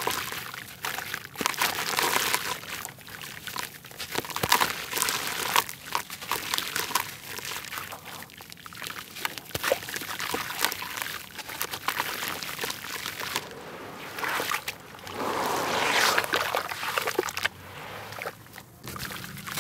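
A grainy red dirt block crumbled by hand into a tub of muddy water: crumbling grit with trickling, dripping and sloshing water. Later the hands squish and mash the soaked dirt in the water.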